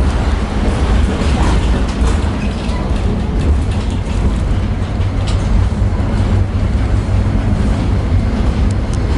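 Tatra T6B5SU tram in motion, heard from inside the car: a steady low rumble of wheels on the rails and running gear, with a few light clicks and rattles.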